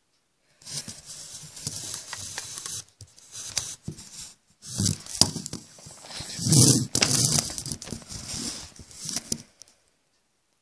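Rustling and crinkling handling noise close to the microphone as squishy toys are gathered and moved about, with a few sharp clicks and knocks, starting about half a second in and stopping shortly before the end.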